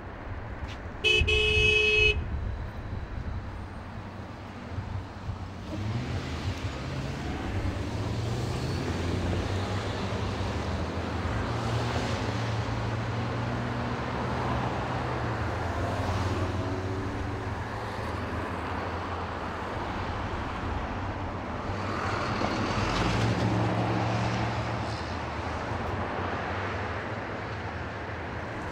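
Street traffic passing in a steady stream, with a short car-horn honk about a second in. The traffic noise swells a few times as vehicles go by close.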